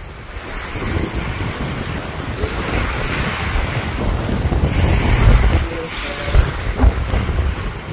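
Wind buffeting the phone's microphone in gusts, with small waves washing against the shore underneath.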